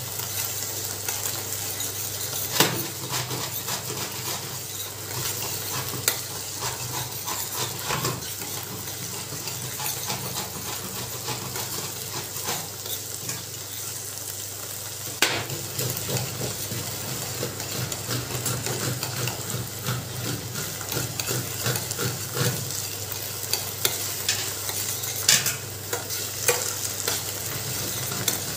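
Grated white gourd sizzling in ghee in a steel pan while a spatula stirs and scrapes it, with a few sharp knocks of the spatula against the pan. The gourd is being roasted to drive its water off before it browns.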